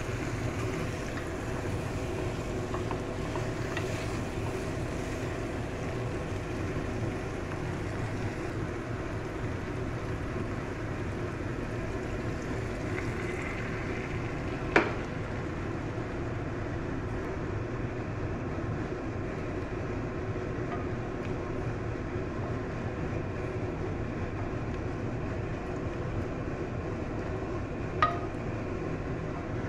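Egg and potato curry cooking in a nonstick pan on the stove: a steady hum and hiss throughout, with a spatula stirring. Two sharp knocks of the spatula against the pan, one about halfway through and one near the end.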